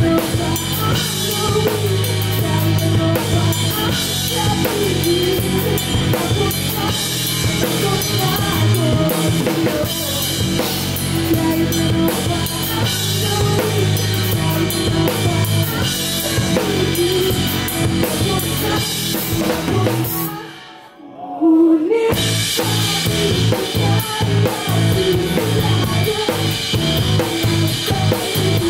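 Live band with a full drum kit: bass drum, snare and a constant wash of cymbals under sustained bass and guitar. About two-thirds of the way through, the whole band stops dead for a moment, then crashes back in together on a loud hit.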